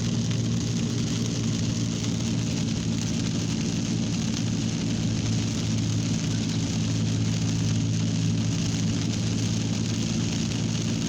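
Steady rainfall, an even hiss that holds level throughout, with a steady low hum underneath.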